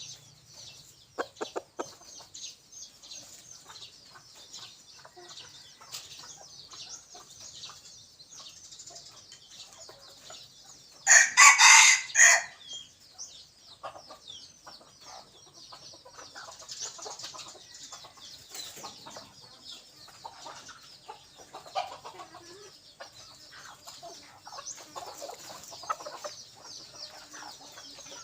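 A junglefowl cockerel crows once, loudly, about eleven seconds in, a crow lasting about a second and a half. Faint, high-pitched chirping runs on continuously underneath.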